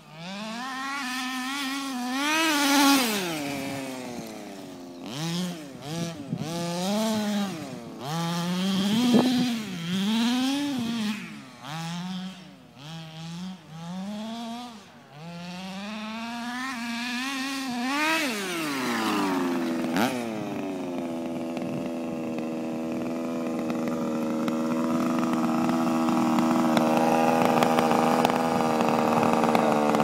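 A radio-controlled car's small combustion engine revving up and down over and over as it drives. About eighteen seconds in the revs wind down, a sharp knock follows, and then the engine idles steadily, getting louder near the end.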